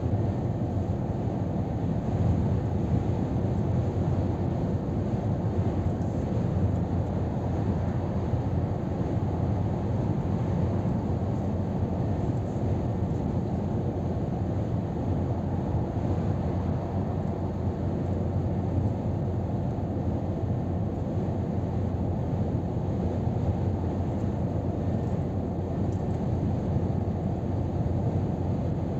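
Steady cab noise of a Scania R500 truck cruising at motorway speed: a low drone from its 13-litre straight-six diesel mixed with tyre and wind noise, holding even throughout.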